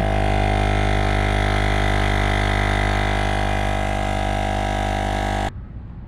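Portable air compressor running with a steady drone as it inflates a tubeless minibike street tire to about 24 PSI; it shuts off suddenly about five and a half seconds in.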